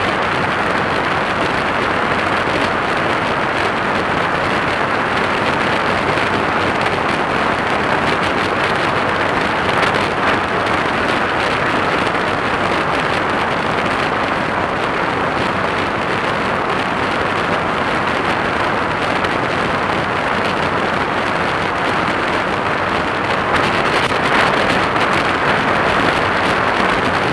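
Motorcycle at a steady cruising speed: a constant rush of wind over the microphone, mixed with engine and road noise, with no change in speed.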